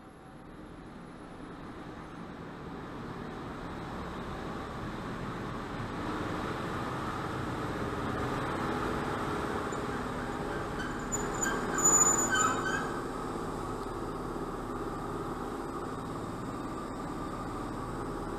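A pair of ET22 electric freight locomotives running light past the platform, the second one dead in tow. Their steady running hum grows louder over the first few seconds as they draw alongside, with a brief metallic squeal about twelve seconds in.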